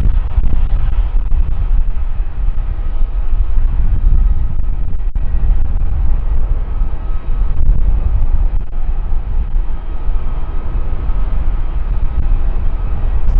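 Boeing 737-900's CFM56-7B jet engines running at idle thrust while taxiing: a steady heavy rumble with a faint, even whine above it.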